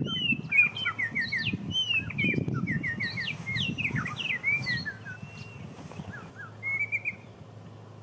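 Songbirds singing: a busy run of quick, sliding whistled notes, several voices overlapping, over a low rumble. The song fades out about seven seconds in.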